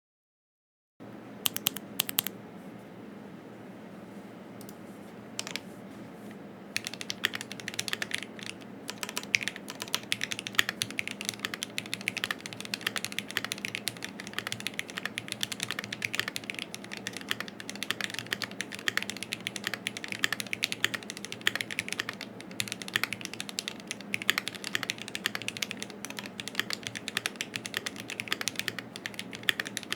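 Typing on a Keychron Q1 mechanical keyboard with Gateron Cap Yellow V2 linear switches, an aluminium plate and GMK keycaps. A few separate keystrokes near the start, then steady fast typing from about six seconds in.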